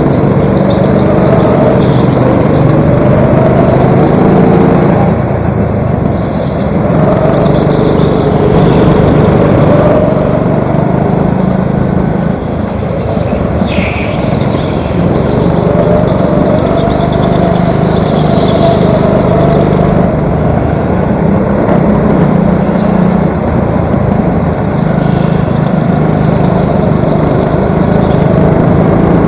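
A go-kart's engine heard from on board, running hard on a twisty indoor track, its note rising and falling every few seconds as the kart accelerates and lifts for the corners. Other karts run close by, and there is a brief high squeal about halfway through.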